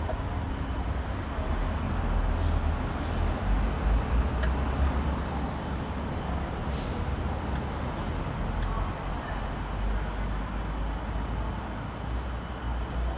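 Steady low rumble of city background noise, with a few faint clicks.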